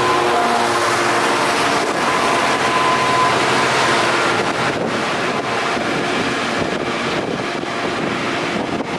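GB Railfreight Class 66 diesel locomotive, with its two-stroke V12 engine, passing close by and running away, followed by the rumble of open box wagons rolling past. From about halfway through, regular sharp knocks of wagon wheels cross the rumble.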